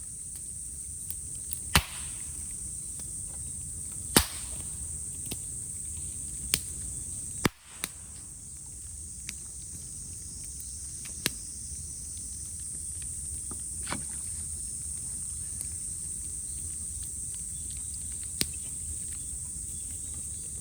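Bamboo burning in a bonfire, giving sharp cracks and pops every few seconds, the two loudest in the first few seconds, over the steady high drone of cicadas.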